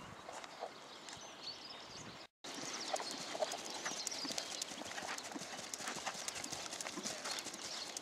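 A ridden horse's hoofbeats on a sand arena, a run of soft repeated footfalls at trot and canter. The sound drops out completely for a moment about two seconds in, then returns a little louder.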